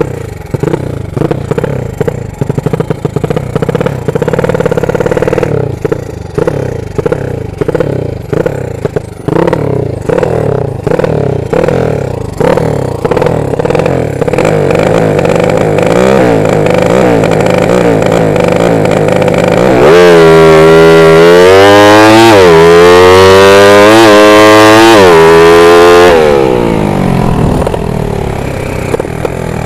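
Drag motorcycle's engine ridden hard with an open exhaust: choppy, uneven running with quick throttle blips for the first half, then a loud full-throttle run about two-thirds in, the pitch climbing and dropping through several gear shifts before easing off near the end.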